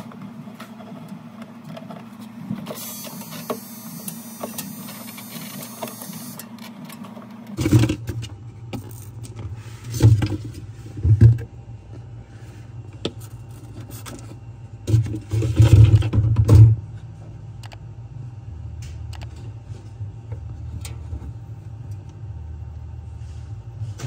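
A steady low mechanical hum that drops in pitch about a third of the way in. A hiss lasts a few seconds before the change. Several loud bumps and handling knocks come around the middle.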